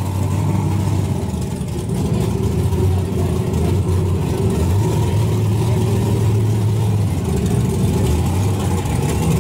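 Drag race car's engine idling with a steady low note and a choppy, uneven beat while the car waits at the starting line to stage.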